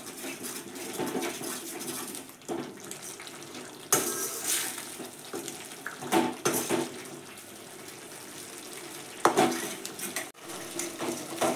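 Ladle stirring a watery vegetable masala in a stainless steel kadai: liquid sloshing and scraping against the pan, with a few sharp knocks of the ladle on the metal, about 4, 6 and 9 seconds in.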